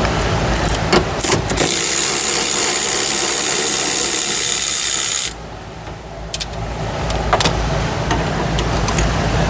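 A few sharp clicks, then a power tool runs with a hissy whine for about four seconds and cuts off suddenly, over a steady low hum.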